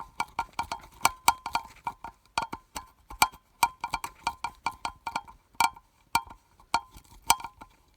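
Hand screwdriver turning a screw out of a plastic strobe housing: a quick, uneven run of sharp clicks, about four a second.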